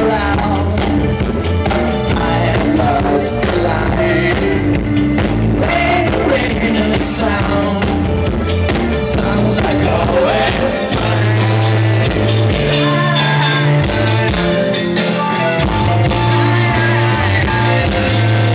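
Rock music from a band: guitar, a low bass line and a steady beat, with a singing voice. Held bass notes change pitch in the second half.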